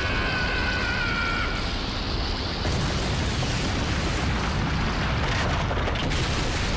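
Anime energy-beam blast sound effect, a Kamehameha: a steady, dense rumbling wash of noise as the beam hits and rock explodes. A few thin held tones fade out in the first second and a half.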